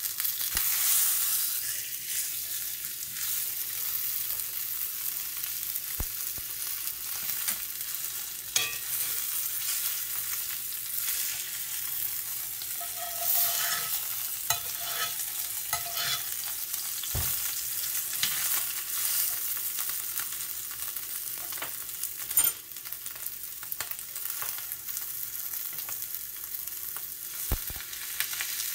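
Ribeye steak sizzling in hot fat in a Lodge cast-iron skillet, a steady high hiss. A few sharp clicks and scrapes of a metal spoon and chopsticks against the pan come as the steak is basted and turned.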